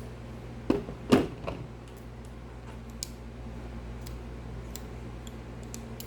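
Metal clicks of Leatherman multi-tools being handled as their saw blades are opened out: two sharp snaps about a second in, then scattered light ticks.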